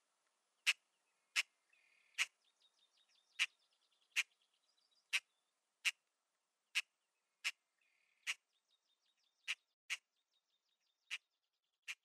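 Quiet, sharp ticks about once a second, unevenly spaced, with faint small-bird chirping in two short spells between them.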